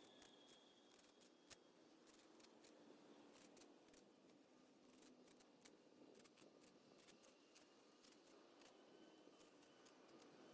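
Near silence with many faint, irregular clicks and ticks.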